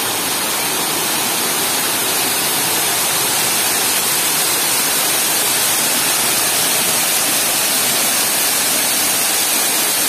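Artificial waterfall, a wide sheet of water pouring from a ledge into a shallow pool, heard from up close as a loud, steady rush of splashing water.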